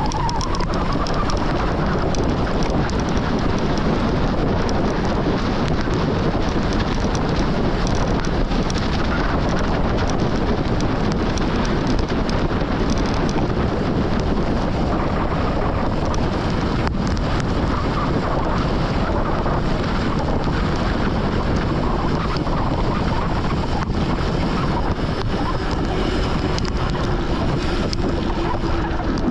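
Steady, loud wind noise buffeting the microphone of a camera carried on a moving mountain bike.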